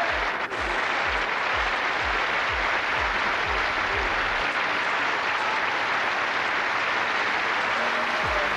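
Studio audience applauding, with a low thumping beat of about three a second under it that stops about halfway through.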